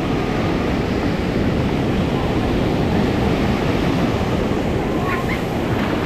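Ocean surf washing onto a beach: a steady, even rush of breaking waves.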